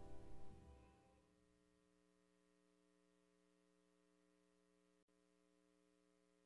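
Background music fading out within the first second, then near silence with only a very faint steady hum.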